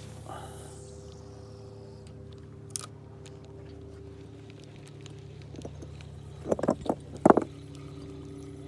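Boat motor running steadily at a low, even idle. A quick cluster of sharp knocks, the loudest sounds here, comes about six and a half to seven and a half seconds in.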